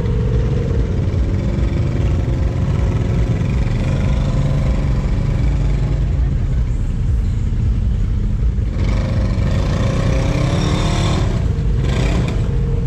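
Lifted side-by-side UTV engine running hard under load in a deep mud hole, its tyres spinning and churning through the mud. It revs up harder at about nine seconds in and again near the end.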